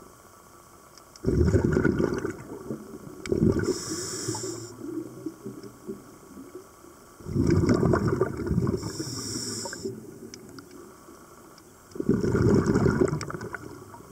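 Scuba diver's breathing heard underwater through a regulator: loud bubbling, gurgling bursts of exhaled air about every five seconds, some followed by a short high hiss.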